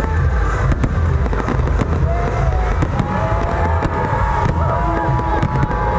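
Fireworks display: aerial shells bursting and crackling in quick, overlapping succession, with crowd voices underneath.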